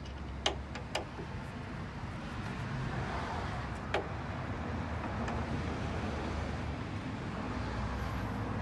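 Idling engine of a 1995 Toyota 4Runner, a steady low rumble, with a few light clicks near the start and one about four seconds in.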